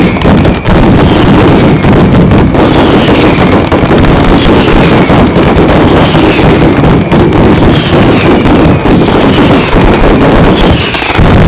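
Batteria alla bolognese, an Italian ground firework battery, firing a dense string of bangs so rapid that they merge into one continuous loud rattle, with a brief dip in loudness near the end.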